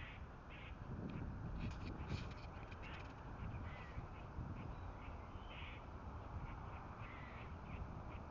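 Squirrel alarm calls: short, repeated barking chirps, irregularly spaced and sometimes a few a second, warning of cats nearby.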